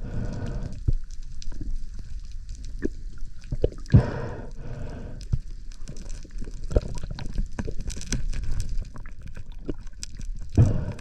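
Water sloshing and gurgling around a spearfisher's head-mounted camera, with scattered small clicks and knocks and a few short whooshing surges.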